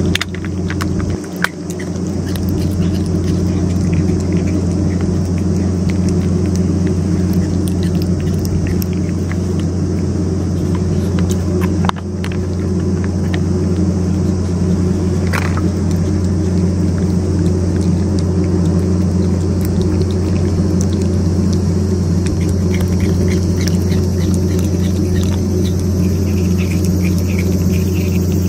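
Steady low mechanical hum with a constant pitched drone, unchanging throughout, with a few faint clicks over it.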